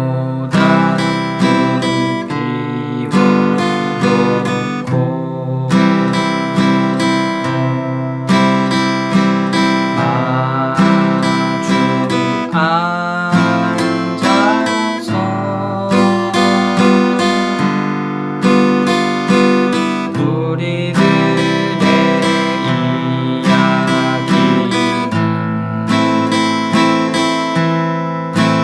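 Acoustic guitar strummed in 3/4 time, one downstroke on the first beat and down-up strokes on the second and third, moving through the C, A minor and D minor chords.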